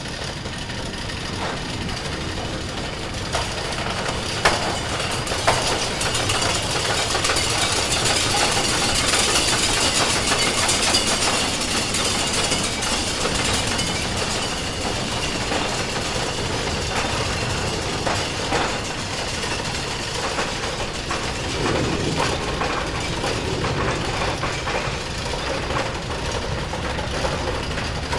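Wooden roller coaster train rattling and clattering along its track, with a couple of sharp knocks about four and five seconds in; the clatter swells for several seconds and then settles to a steady rattle.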